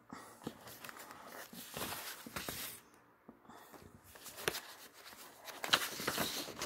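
Sheets of drawing paper rustling and sliding against each other as they are handled and flipped. There are two spells of rustling with a short lull about three seconds in, and a few sharper crackles near the end.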